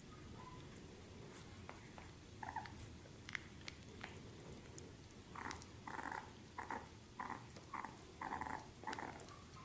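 Bulldog puppy making a series of short, faint vocal noises, about two a second, through the second half, with a few soft clicks before.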